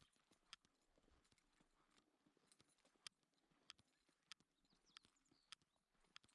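Near silence with faint, sharp clicks at a fairly even pace, a little under two a second.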